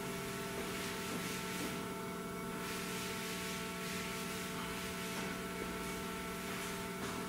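Steady electrical hum, several fixed tones held over an even background hiss: room and recording noise, with no other sound standing out.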